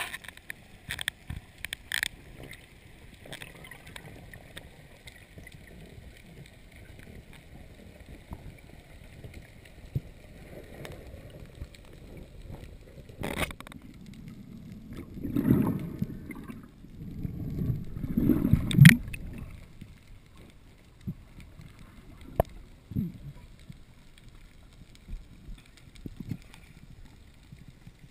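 Water moving around an underwater camera: dull gurgling rushes, loudest about fifteen and eighteen seconds in, with scattered sharp clicks and knocks.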